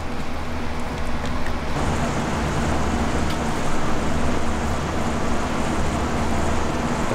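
Steady low rumble and hiss of outdoor background noise, a little fuller from about two seconds in, with a few faint clicks.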